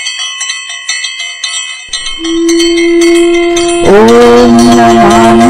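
A brass hand bell of the kind used in aarti, rung rapidly with several strikes a second and its high ringing overlapping. About two seconds in, a steady low drone enters beneath it. Near the end the bell stops and a melody with sliding, wavering pitch begins over the drone.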